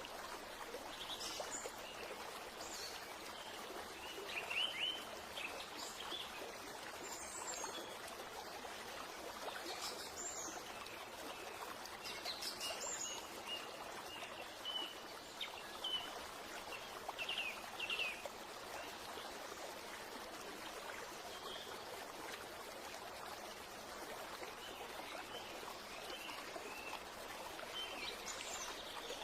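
Small birds chirping in short scattered calls over a steady rushing background like running water.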